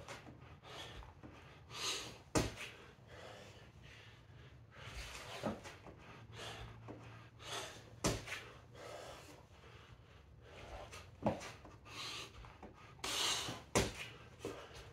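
A man breathing hard in short, forceful exhales while doing burpee-style push-up reps, with about five sharp thuds, roughly every three seconds, as his hands and feet land on a rubber gym mat.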